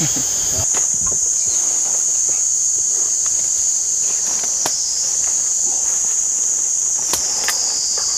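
Dense jungle insect chorus: a loud, steady, high-pitched drone, with a second, slightly lower drone joining near the end. A few light clicks and rustles sound over it.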